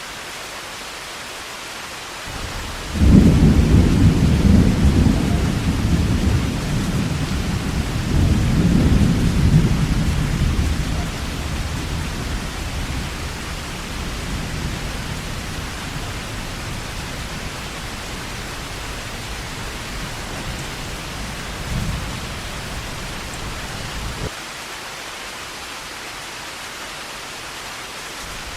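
Heavy rain falling steadily, with a loud rumble of thunder that breaks in about three seconds in, swells again a few seconds later, slowly dies away, and then cuts off suddenly near the end.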